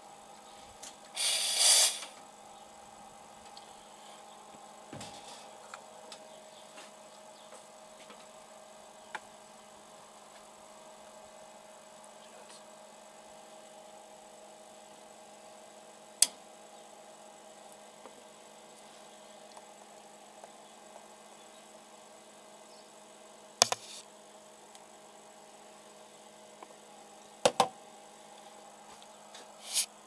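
A short hiss of steam from a vintage Gaggia lever espresso machine's steam wand about a second in, the wand being purged. Then a faint steady hum, broken by a few sharp clicks.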